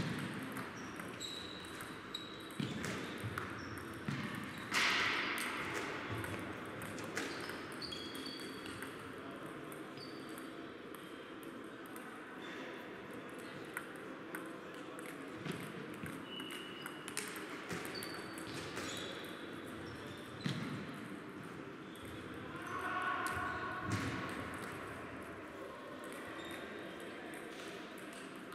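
Table tennis balls in play on several tables at once: irregular sharp clicks of the ball off rackets and table tops, with short high pings.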